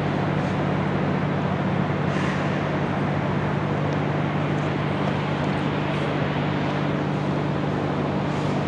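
Steady low mechanical hum at an even level, with a few constant tones over a broad noise bed.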